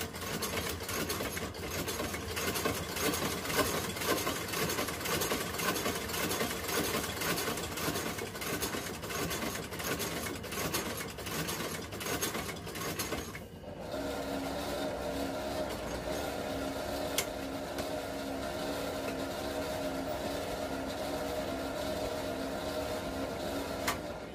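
Industrial shoe-sole stitching machine running noisily. For about the first half it has a rapid, dense clatter as it stitches a leather sole, then after a brief dip it runs on steadily with a smoother hum.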